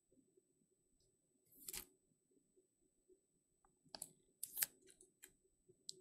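Near silence, broken by one short rustle about a second and a half in and a few faint, sharp clicks near the end, from trading cards and a plastic card holder being handled.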